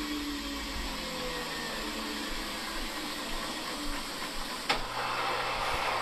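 Front-loading washing machine's drum slowing after a spin, its motor whine falling in pitch. Nearly five seconds in there is a sharp click, and a steady low hum starts.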